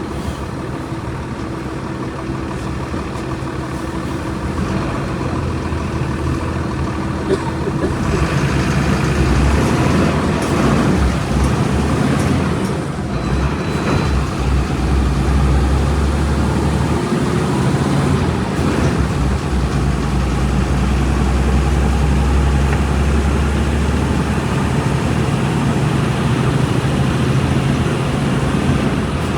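Volkswagen Volksbus 17.230 EOD bus's diesel engine running. It grows louder about eight seconds in, with a strong low drone through the middle of the stretch.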